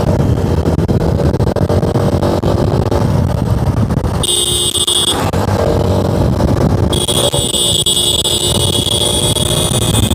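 TVS Apache RTR 160 4V's single-cylinder engine accelerating, with wind noise, heard from the rider's seat. A high, steady electronic tone cuts in for about a second at four seconds in, then again from about seven seconds on.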